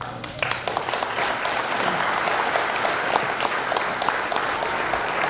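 A room full of guests applauding: the clapping breaks out suddenly, swells within the first second, then holds steady.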